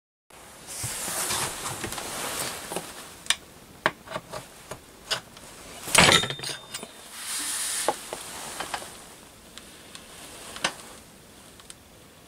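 Brass fire piston struck once with the palm about six seconds in: one sharp, loud whack on the handle with a brief metallic ring. It is the compression stroke that lights the char cloth inside. Lighter clicks and rustles of handling come before and after it.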